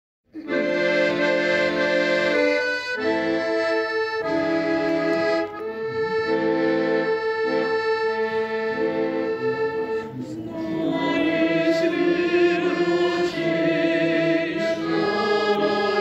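Accordion playing a slow introduction in sustained chords that change every second or so; about ten seconds in, singing with vibrato comes in over it.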